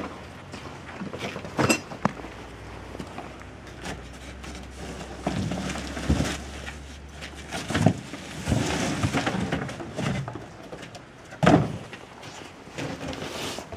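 Irregular thuds, knocks and scraping of an old water heater being handled and loaded, with a few sharp bangs about two, six, eight and eleven seconds in.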